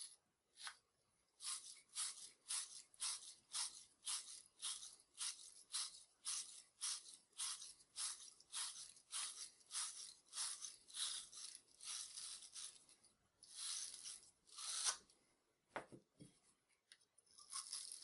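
Wire fitting brush scrubbing the inside of a 3/4-inch copper coupling: a run of quick, rasping back-and-forth strokes, about two a second. The strokes break off briefly near the end, with a low knock, then start again.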